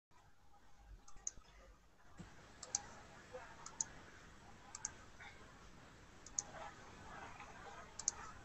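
Faint computer mouse clicks, mostly in quick pairs, about six times, as open programs are being closed, heard over a video-call connection.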